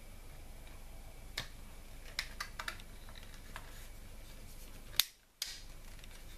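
Scattered small clicks and taps of plastic and metal as the optical-drive bezel is fitted onto an HDD caddy by hand, the sharpest click about five seconds in, after which the sound cuts out for a moment.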